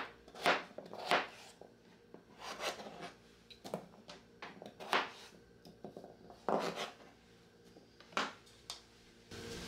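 Chef's knife dicing peeled potatoes on a plastic cutting board: a series of short, irregular knocks of the blade against the board.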